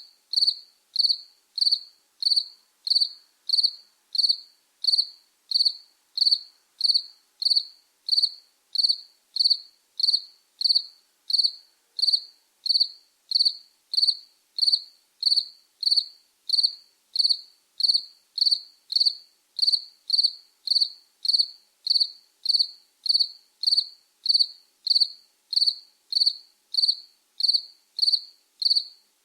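A cricket chirping in a steady, very even rhythm, about three short high-pitched chirps every two seconds.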